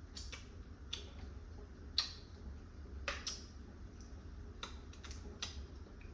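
Blue crab being eaten: about a dozen scattered, sharp clicks and small crackles of shell and mouth sounds, irregularly spaced, the loudest about two seconds in.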